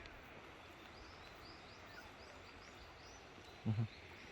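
Quiet outdoor ambience with a small bird repeating a short, high chirp about two to three times a second, and a brief low murmur from a person a little before the end.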